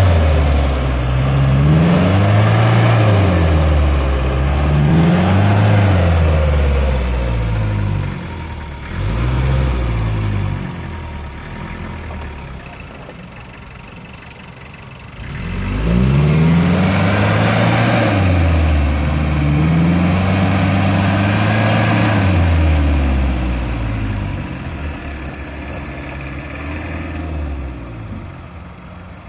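Land Rover Defender 110's engine revving up and down repeatedly under load, in long rising and falling sweeps, with a few short blips and a quieter stretch in the middle before more hard revving, then easing off near the end.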